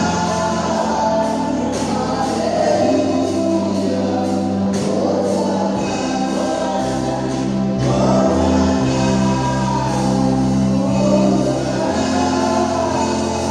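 Gospel choir singing over a keyboard or bass accompaniment, with held bass notes changing every second or so.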